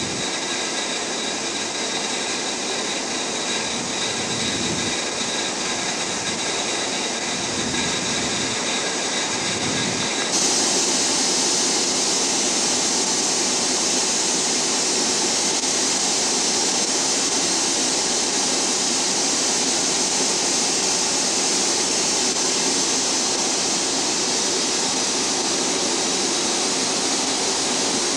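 Steady roar of a ship's machinery and ventilation below decks, with a few faint steady high tones. About ten seconds in, a louder hiss comes in suddenly and then holds steady.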